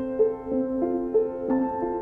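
Piano playing a slow, gentle hymn-like melody, about three notes a second over held lower notes.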